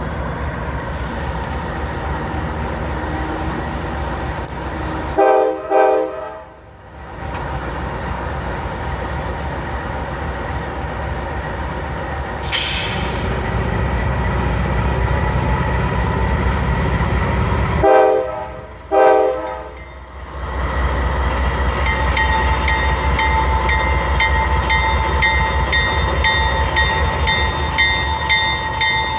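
GE AC44CW diesel locomotive running with a steady low rumble, sounding two short horn blasts about five seconds in and two more about eighteen seconds in. A brief hiss of air comes about twelve seconds in, and the engine rumble grows heavier after it. Regular clicking with a ringing tone sets in for the last several seconds.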